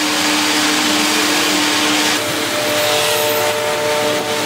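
Bus engines running and road traffic passing close by: a loud, steady rush of noise with a steady engine whine, which shifts to a higher pitch about two seconds in.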